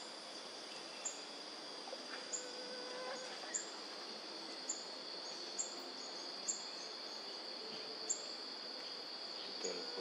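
A steady, high-pitched insect drone, with a short, sharp, very high bird note repeated roughly once a second and a faint low whistle about two to three seconds in.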